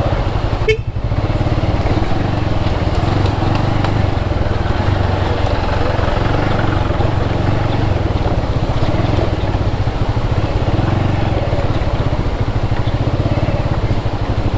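Motorcycle engine running steadily while being ridden on a rough track, with a brief break about a second in.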